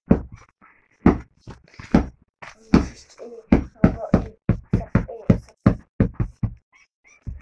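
A boy's voice in quick, clipped syllables, about three a second, with knocks mixed in among them.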